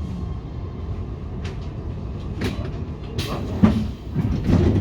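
Nuremberg U3 subway train heard from inside the car, a steady low rumble of running with a few sharp clicks and knocks from the wheels over the track, the loudest past the middle.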